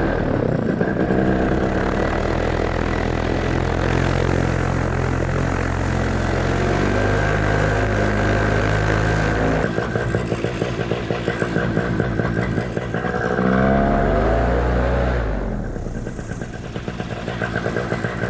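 Vittorazi Moster 185 single-cylinder two-stroke paramotor engine running hard under throttle on a take-off attempt. Its pitch shifts with the throttle, climbing about 13 seconds in and dropping back about two seconds later.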